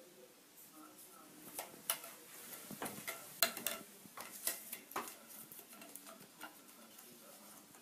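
A string of irregular sharp clicks and clinks of small hard objects knocking together. They are busiest and loudest between about one and a half and five seconds in, then thin out.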